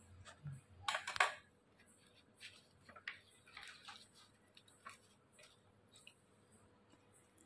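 Faint clicks and scrapes of a kitchen knife and a plastic plate being handled while a set colostrum milk pudding is cut, loudest in a short clatter about a second in, then a few light taps.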